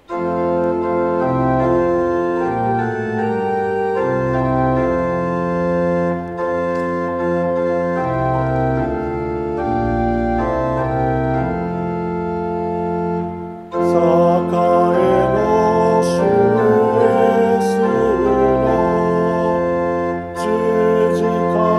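Church pipe organ playing a hymn in slow sustained chords that change every second or so. About 14 seconds in, singing voices join the organ on the hymn.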